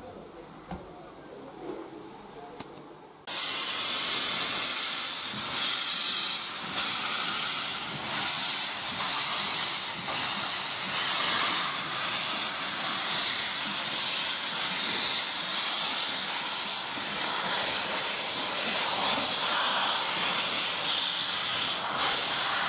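Heritage steam locomotive venting steam: a loud, steady hiss that starts abruptly about three seconds in and keeps going.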